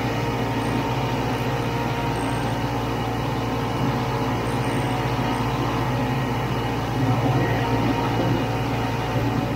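Snowmobile engine running steadily at cruising speed, heard from on board the moving sled; it gets briefly a little louder about seven seconds in.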